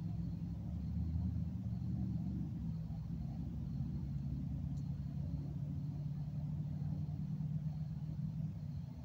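Low, steady rumble with an engine-like hum, such as distant motor traffic.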